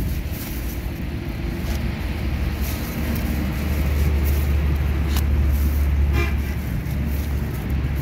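A motor vehicle's engine running close by, its low rumble growing louder from about three and a half seconds in, with a brief horn toot about six seconds in.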